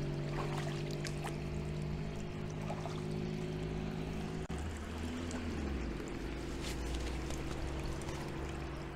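Water pouring and trickling into an outdoor foot-wading basin.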